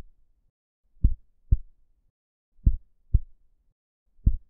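Heartbeat: slow pairs of low lub-dub thumps, the two beats of each pair about half a second apart and the pairs repeating about every one and a half seconds, three pairs in all.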